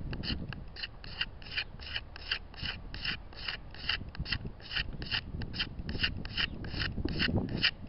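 Hand sanding: a folded piece of sandpaper rubbed in quick short strokes, about three a second, over the outside of a hard, dry oak-burl kuksa.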